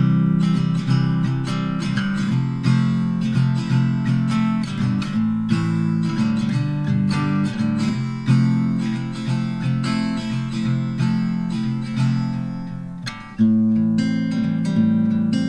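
Background music played on acoustic guitar, picked and strummed.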